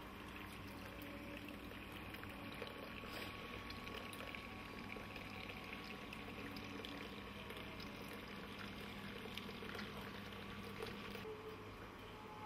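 Faint, steady trickle of running water from a miniature stream in a nativity scene, over a low hum.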